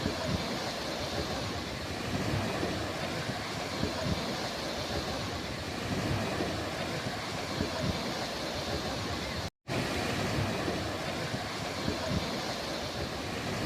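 Ocean surf washing steadily on a beach, with wind buffeting the microphone in a low rumble. The sound cuts out completely for a split second about two-thirds of the way through.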